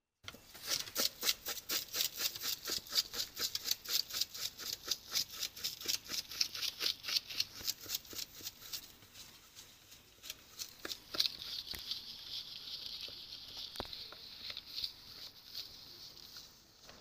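Jhalmuri (puffed rice with chopped onion, chili and spices) being stirred fast with a spoon in a plastic bowl: rhythmic scraping and rattling at about four to five strokes a second, easing after about ten seconds into a softer, steadier rustle.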